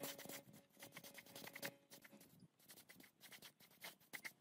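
Near silence with faint scratchy ticks and light clicks, and a faint held tone that fades out about two seconds in.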